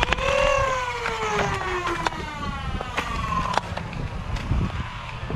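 Foam-dart blaster's flywheel motors revving up with a quick rising whine right at the start, then winding down in pitch over the next few seconds. A few sharp clicks come through, with low wind rumble on the microphone.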